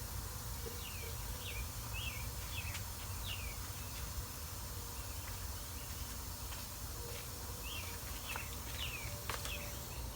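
A bird singing a phrase of about five or six quick downslurred chirps, repeated once about five seconds later, over a steady low background rumble. A couple of faint clicks are heard.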